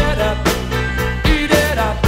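Pop song with a steady drum beat and a singing voice.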